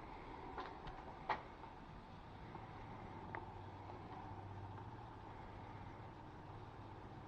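A faint, steady low engine hum, strongest in the middle, with a few short sharp clicks or knocks; the loudest click comes just over a second in.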